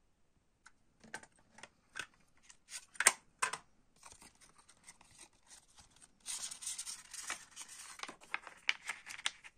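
Hands handling and unfolding a cassette's fold-out paper J-card insert: a run of sharp clicks and snaps in the first few seconds, then paper rustling and sliding, densest about six to seven seconds in.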